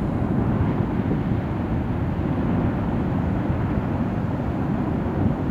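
Benbow crater's active lava lake on Ambrym volcano boiling violently and throwing up lava fountains, heard as a steady low rumble.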